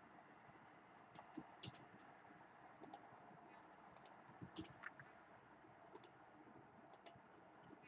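Faint, scattered clicks from a computer mouse and keyboard, about a dozen short clicks, some in quick pairs, against near silence.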